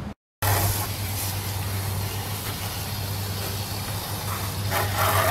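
Garden hose spraying water into a window air conditioner's fan housing to flush out loosened dirt: a steady, loud hiss over a steady low hum, growing fuller near the end. The sound starts abruptly after a brief dead gap.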